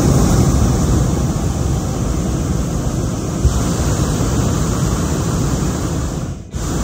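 Hot air balloon's propane burner firing: a loud, steady roar that breaks off for a moment near the end and then starts again.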